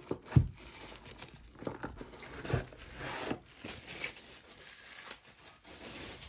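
Plastic wrapping crinkling and rustling as it is handled and pulled off a portable Bluetooth speaker, with a sharp thump about half a second in and a softer one a couple of seconds later.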